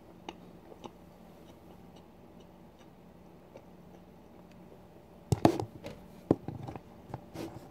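A few faint clicks, then a bit over five seconds in a run of loud clatter and scraping: a utensil knocking and scraping against the plastic tub of goulash being eaten from.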